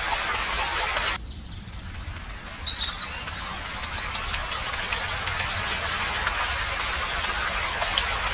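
A steady rushing hiss of natural ambience cuts off suddenly about a second in. A bird then gives a quick series of short, high chirps, and the steady hiss returns.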